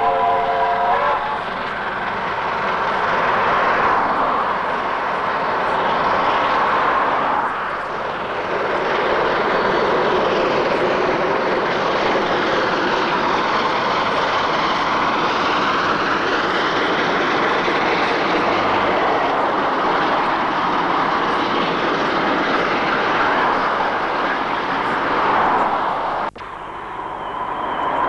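New Zealand J-class steam locomotive J1211 sounding its whistle, a chord of several tones held for about a second. Then a dense, steady rush of noise as the locomotive and its train run close past. It drops off suddenly near the end, giving way to a quieter, more distant train sound.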